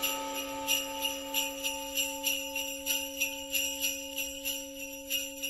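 Sleigh bells shaken in a steady rhythm, about three shakes a second, over a held musical note: the tail of an intro jingle.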